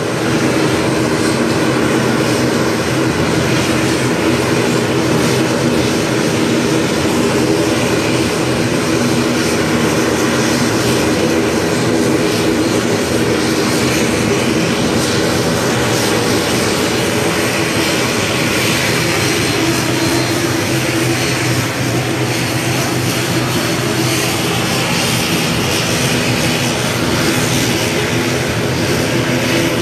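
Airplane engines running steadily on the ground: a loud, even drone with several held low tones and a broad rushing hiss.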